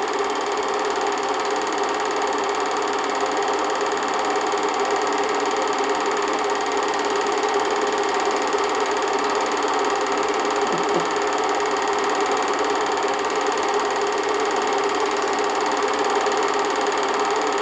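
8mm home-movie film projector running steadily, a constant mechanical whir.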